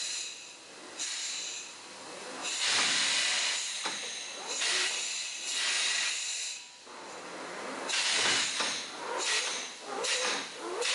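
Compressed air at 100 psi hissing out of an open-center steering control valve that is driving a homemade articulated tractor's steering cylinder in place of hydraulic oil. The air hissing rises and falls in a string of uneven surges as the valve is worked; in neutral the open-center valve vents the air straight to the open air.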